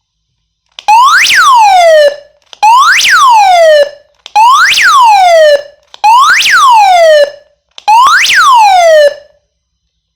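Arduino-built electronic police siren sounding one of its tones: five identical buzzy sweeps, each rising quickly then falling for about a second and cutting off, about every 1.7 s with short gaps between.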